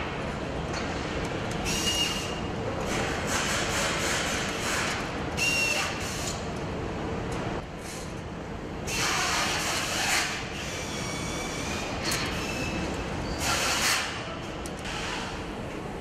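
Factory assembly-line noise: a steady machine hum with repeated hissing bursts of a second or so from compressed-air tools, some with a thin whistle in them.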